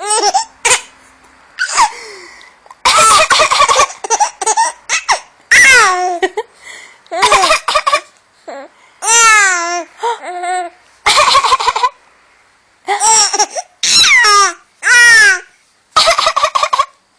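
A baby laughing in over a dozen short, loud bursts, each a high squeal that falls in pitch, with laughs that sound like coughs.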